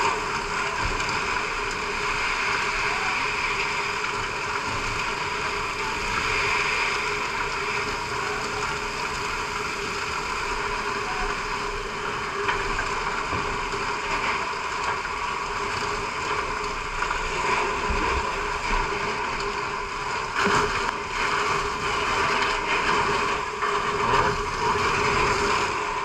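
Fire hose spraying water at a fire: a steady rushing hiss that does not let up, with a faint steady tone underneath.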